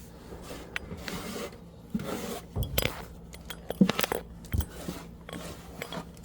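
Hands rummaging in the dryer and pulling out lint and debris: rustling, scraping and a scatter of light knocks and clicks, the loudest of them about four seconds in.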